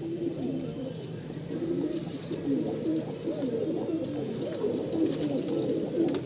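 A flock of domestic pigeons cooing, with many low warbling calls overlapping without a break.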